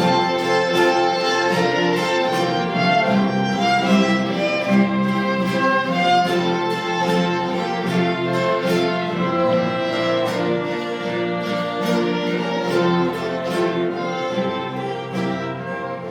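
Orchestral music led by bowed strings, violins over a string section, playing a sustained melody.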